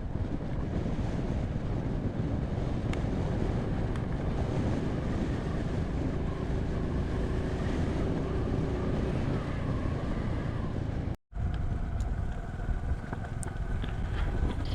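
Motorcycle running at road speed, a steady rumble mixed with wind buffeting the microphone. The sound drops out for an instant about eleven seconds in.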